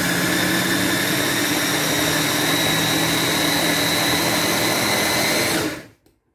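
Electric mini chopper's motor running steadily with a whine as its blade purées chopped tomatoes, then switching off near the end.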